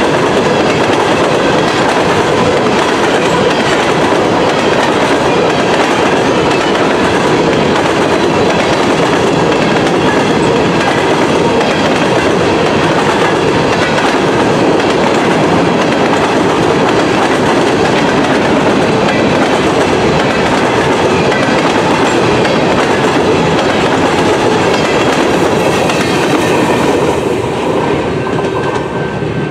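A freight train of covered hopper cars rolling past close by, a steady loud running noise of wheels on rail that starts to fade near the end as the last car goes by.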